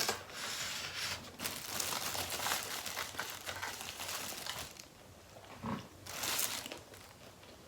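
Close-miked eating sounds: chewing and handling of tacos and carne asada fries, in uneven noisy bursts, busiest over the first few seconds, with another burst near the end.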